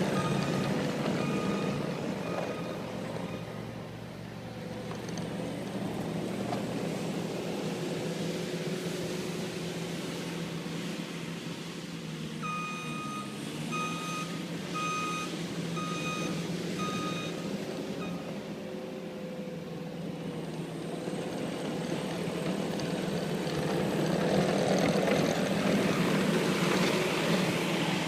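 Skid steer engine running steadily while the machine works back and forth, its reversing alarm beeping in a steady series at the start and again for about five seconds midway. The engine gets louder near the end.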